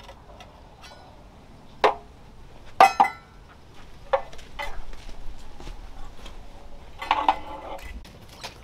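A handful of sharp metal clinks and knocks from a hand trowel and other tools. The loudest is a double clink about three seconds in that rings briefly. A few quieter knocks follow, and a short cluster comes near the end.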